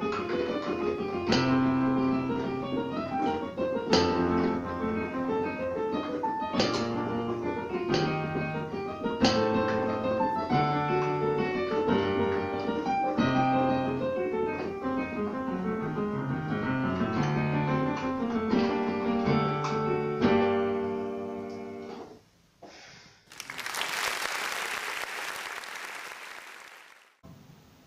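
Digital piano playing a solo piece, finishing about 21 seconds in on a held chord that fades away. After a short silence, an even hiss-like wash of noise runs for about four seconds.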